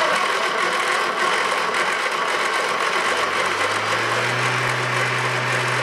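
Starter motor of a 1098 A-series engine on a stand, powered straight from a battery, cranking the engine over without it firing for a compression test: a steady mechanical whirr. About three and a half seconds in, a steady low hum rises slightly and then holds.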